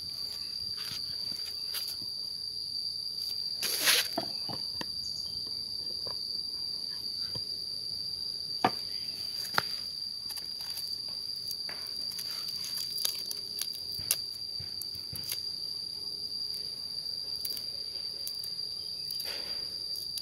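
Insects trill steadily in one unbroken high tone. Scattered small clicks and taps come from hands handling a small object, with a louder brief rustle about four seconds in.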